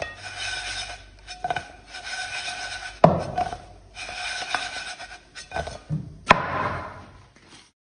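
Rolling pin working momo dough on a wooden board: a run of rubbing strokes about a second apart, with two sharp knocks, the loudest about three seconds in and just after six seconds. The sound cuts off suddenly near the end.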